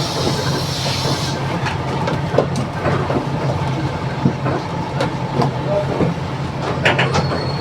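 Inside a Marcopolo Torino bus on a Mercedes-Benz OF 1721 BlueTec 5 chassis under way: a steady low drivetrain drone with a faint constant whine, and the body rattling and clicking throughout. A hiss of compressed air fades out about a second in. The drone carries the growl of a noisy differential.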